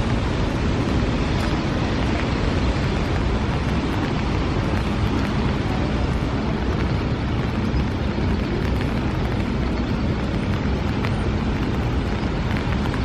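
Steady outdoor city noise: a constant rumble of street traffic mixed with wind, with no distinct calls or events standing out.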